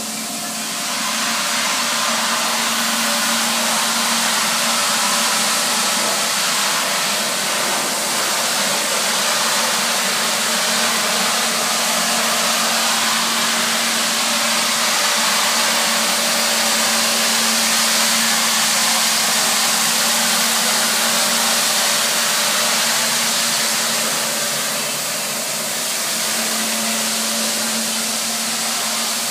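Nilfisk BA531D walk-behind scrubber dryer running while scrubbing a wet floor: its brush and suction motors give a steady hum under a continuous hiss. It grows louder about a second in.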